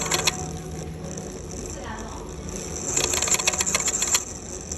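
Check-Go golf ball sweet spot finder running: its small motor turns the ball with a low hum and a rapid mechanical clicking rattle, which comes in a burst at the start and again from about three seconds in.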